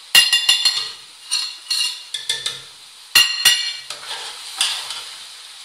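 A metal spoon clinks and scrapes sharply against a plate and a metal cooking pot as spices are knocked into it, with several ringing strikes, the loudest about three seconds in. It then stirs the chicken and spices in the pot over a faint frying sizzle.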